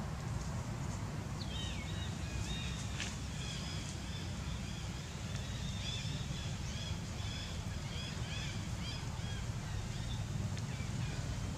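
Small birds chirping in quick runs of short, high notes for several seconds, over a steady low rumble.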